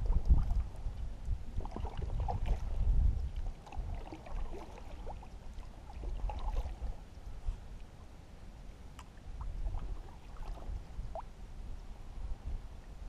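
Small boat moving through shallow marsh water: water moving against the hull, with scattered light knocks and an uneven low rumble that is heaviest in the first three seconds.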